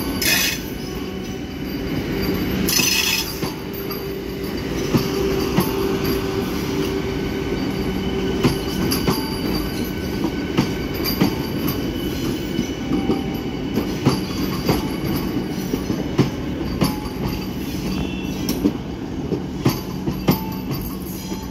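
Vande Bharat Express electric multiple-unit trainset rolling past at low speed, its wheels clacking over rail joints and points, with a steady hum underneath. Two brief high-pitched bursts come near the start, one right away and one about three seconds in.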